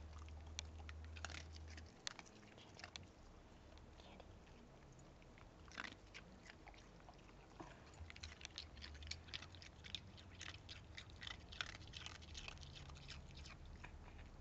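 Small dog biting and crunching an ice cube: a run of sharp, irregular cracks and clicks, coming thickest in the second half.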